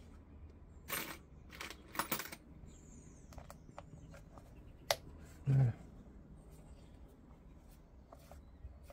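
Small metal clicks and scrapes of a hex driver and small screws being worked on the plastic chassis of an RC car, the loudest in the first couple of seconds. There is a short grunt about five and a half seconds in.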